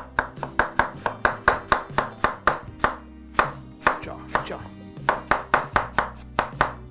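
Chef's knife slicing cabbage on a wooden cutting board: quick, even knocks of the blade on the board, about four a second, with two short pauses.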